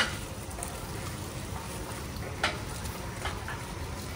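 Goats and sheep feeding on cut grass at a trough, heard as a low steady rumble with a few sharp clicks or knocks, the loudest right at the start and another about two and a half seconds in.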